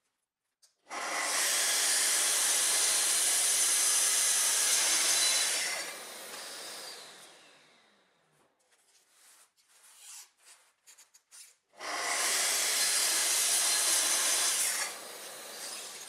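Festool TS 55 REBQ plunge track saw cutting through wood twice, each cut lasting about four seconds before the blade winds down. Light knocks and handling sounds come between the two cuts.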